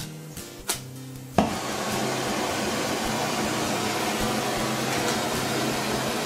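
Oxy torch lit with a sharp pop about a second and a half in, then its flame hissing steadily.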